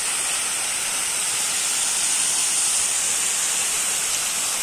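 Borehole water falling from a mesh-tray degassing tower and splashing into a pond as one steady, unbroken hiss. The water is broken up through the mesh screens to strip out dissolved nitrogen and take up oxygen for trout.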